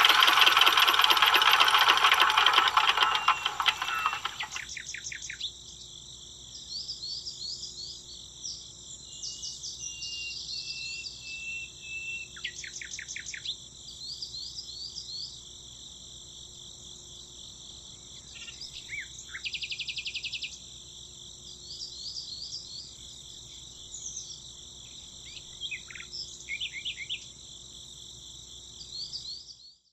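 A miniature model diesel engine, belt-driving a toy water pump, runs loudly and stops about four and a half seconds in. After that, a steady high-pitched insect drone goes on, with birds chirping now and then.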